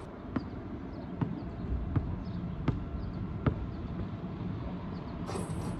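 Basketball dribbled on an asphalt court: five bounces, about one every three quarters of a second, stopping about three and a half seconds in.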